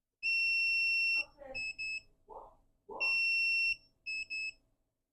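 Multimeter continuity beeper sounding as the probes touch an HDMI port's pins: a high steady beep of about a second followed by two short beeps, the pattern coming twice. The beeps show that each pin connects through, so the port is intact.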